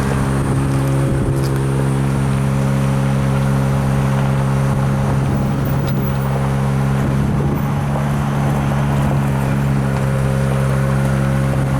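Engine of tree-trimming equipment running steadily at constant speed, a low, even drone with no change in pitch.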